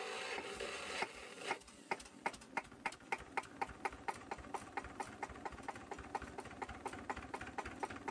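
Cunewalder single-cylinder hopper-cooled diesel engine idling very slowly, knocking evenly about three times a second, the low idle speed the owner has been adjusting for.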